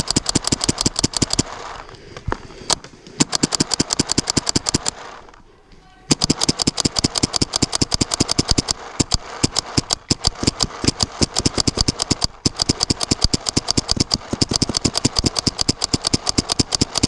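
Paintball markers firing rapid strings of shots, about ten a second, in long bursts with short breaks about two and five and a half seconds in.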